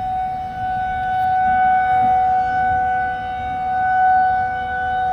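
Outdoor tornado warning siren wailing on one steady pitch, its loudness slowly swelling and fading, over a low rushing noise.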